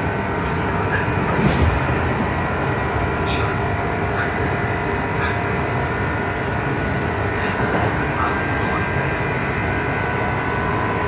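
Interior running sound of a Kintetsu 2800-series resistance-controlled motor car with Mitsubishi MB-3110A traction motors: a steady rumble carrying several constant whining tones. The uploader puts an odd, unusual noise from the drive couplings down to this car. A single clunk comes about a second and a half in.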